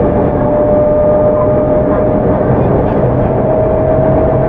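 Tokyu 9000 series electric train running, with rumble from the wheels and track and a steady whine from its early Hitachi GTO-VVVF inverter and traction motors, rising slightly in pitch near the end.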